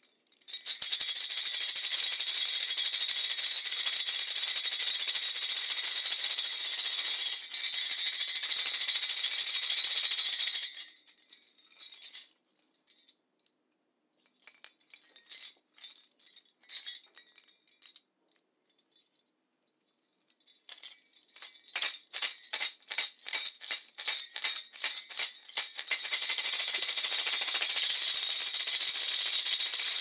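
A pair of Indian khartal shakers, solid sheesham-wood blocks set with small metal jingles, shaken fast in a continuous jingle for about ten seconds. Then come a few scattered clacks and jingles with short pauses, then a run of evenly spaced strokes at about three or four a second, and fast continuous jingling again for the last few seconds.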